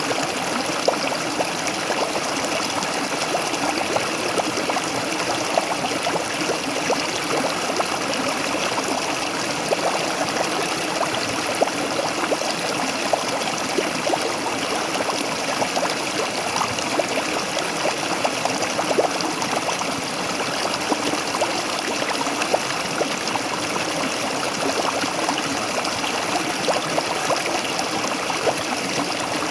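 Waterfall: water running and splashing steadily, an even rush dense with tiny splashes.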